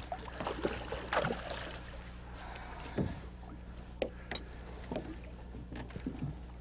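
Boat motor running with a low steady hum, with a few short faint splashes and knocks as the big lake trout is brought alongside to the net.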